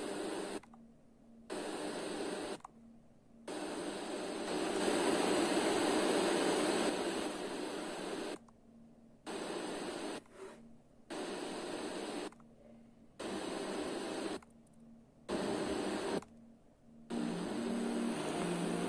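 FM radio tuner stepping through the band, giving bursts of static hiss on weak or empty channels, each broken off by a short silence as it retunes. In the middle there is one longer, louder stretch of noisy reception.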